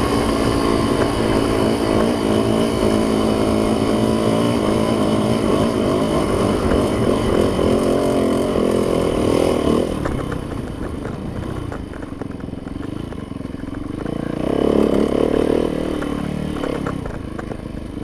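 Yamaha YZ dirt bike engine running hard under way on a trail. It eases off about ten seconds in, gets a short burst of throttle a few seconds later, then settles back.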